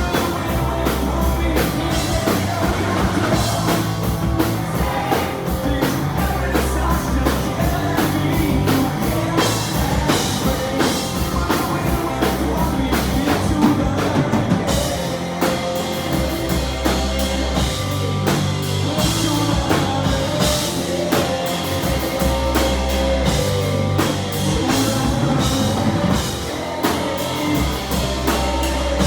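Rock band playing live, with a full drum kit, guitar and a pulsing bass line, and some singing.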